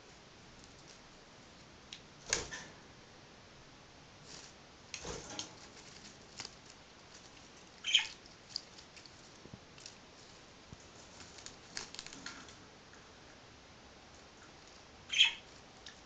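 A budgerigar leaf-bathing in lettuce leaves in a small plastic box: soft, intermittent rustling and pattering of leaves and feathers as it rubs and flutters. A few sharper bursts stand out, the loudest about eight seconds in and near the end.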